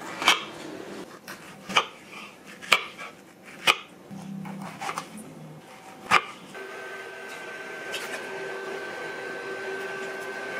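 Kitchen knife cutting soft peeled peaches on a wooden cutting board, the blade knocking sharply on the board about five times. About six seconds in, this gives way to a steady hum with a high held tone.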